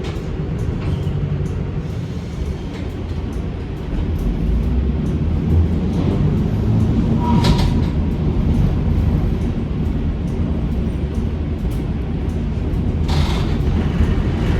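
Heritage tram running along the track: a steady low rumble of motors and wheels that grows louder about four seconds in, with two short hissing, squealing bursts, one near the middle and one near the end.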